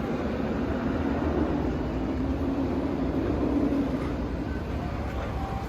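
A machine running steadily: a low rumble with a faint droning hum.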